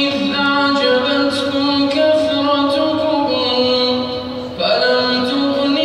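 A man reciting the Quran in the melodic tajweed style, drawing out long held notes that step from pitch to pitch, with a brief pause about four and a half seconds in.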